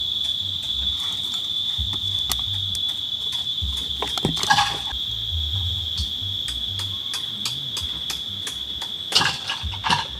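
A steady, unbroken high-pitched insect trill, crickets or similar, with scattered light clicks and knocks. A louder clatter comes about four and a half seconds in and again near the end.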